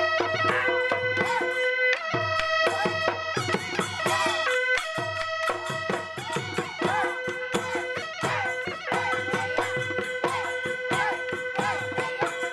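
Instrumental folk-style music: held melody notes over a quick, steady drum beat.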